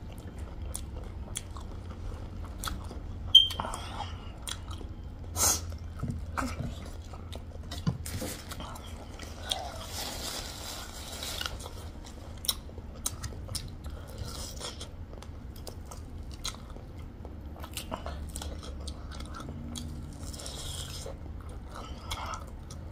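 Close-miked chewing and biting of food, with many small crunches and wet clicks. A sharp click about three seconds in and another louder one about five and a half seconds in stand out.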